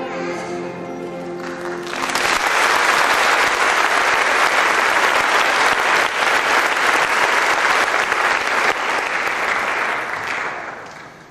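A children's choir and orchestra hold the last chord of a song, which ends about two seconds in. Audience applause then breaks out and carries on steadily before dying away near the end.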